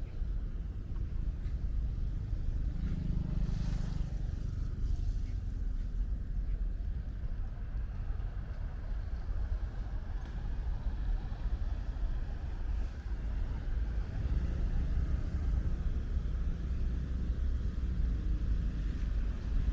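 Steady low rumble of road traffic with a faint hiss of light rain.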